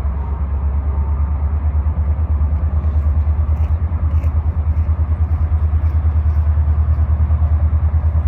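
Two diesel freight locomotives, the lead one a Union Pacific unit, running at low speed with a deep, rapidly pulsing engine rumble that grows a little louder as they come by.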